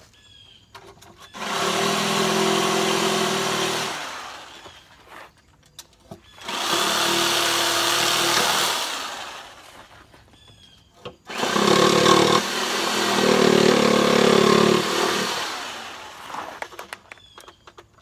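Electric jigsaw cutting through a 2x6 board, finishing a notch cut. It runs in three bursts with short pauses between, the last and longest lasting about five seconds.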